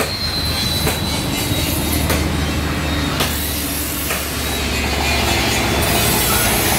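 Workshop machinery running: a steady low hum with a few sharp clicks or knocks.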